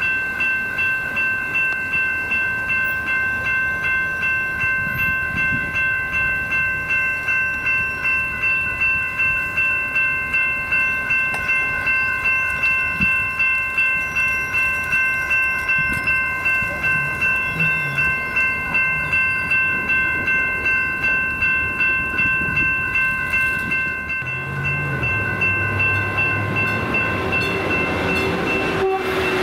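Railroad grade-crossing warning bell ringing in rapid, evenly spaced strokes. About 25 seconds in, the low running sound of a Stadler GTW diesel multiple unit railcar approaching the crossing joins it.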